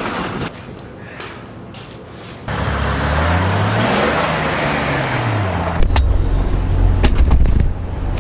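Jeep Wrangler TJ engine revving up and back down, starting about two and a half seconds in, then running steady and low with scattered sharp knocks.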